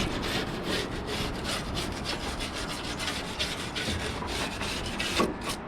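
Quick, uneven back-and-forth rubbing and scuffing strokes on the car's body, as the paintwork is cleaned and scuffed to get out dirt and old paint chips before painting.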